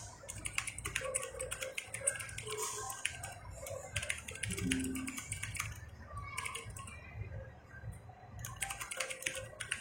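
Keys being pressed on an ASUS ROG Strix Scope mechanical keyboard with Cherry MX switches: irregular clicks of keystrokes as the keys are tried out one after another.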